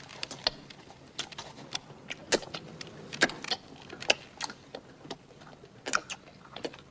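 Plastic ballpoint pen being chewed, a run of irregular sharp cracks and clicks as it is bitten, several a second.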